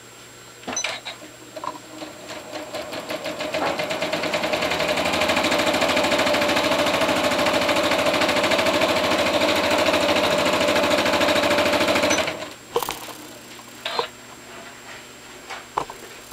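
Janome computerized sewing machine stitching a seam: it speeds up over a couple of seconds, runs at a fast, even stitch rate, then stops abruptly. A few light clicks follow.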